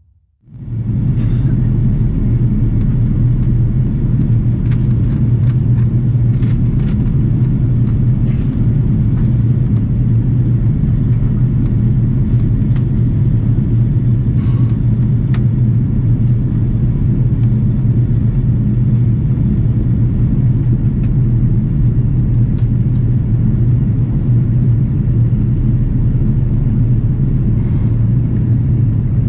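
Steady low drone of an Airbus airliner's cabin, engine and airflow noise, starting abruptly about half a second in, with a few faint light rattles.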